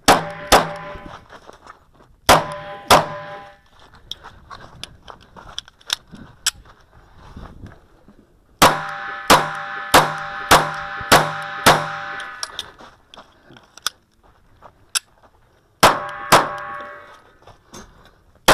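A 9mm Kahr CM9 pistol firing about a dozen shots: two pairs near the start, a quick string of six near the middle and a pair near the end. Several shots are followed by a lingering metallic ringing.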